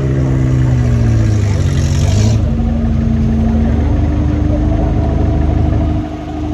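An off-road 4x4's engine running under load and revving, its pitch sagging over the first couple of seconds and then holding steady, with a brief drop in loudness about six seconds in.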